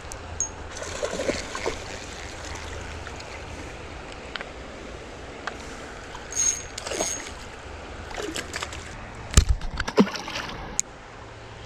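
Creek water splashing in short bursts over a steady rush of water, with a few sharp knocks and a heavy thump about nine seconds in.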